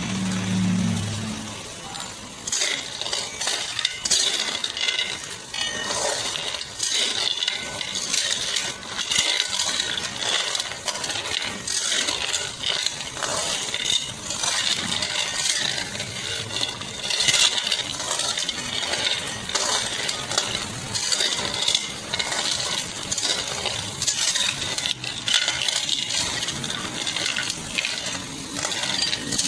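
Green mussel shells clinking and rattling against a metal pan and a metal ladle as they are stirred, a steady irregular clatter of many small knocks.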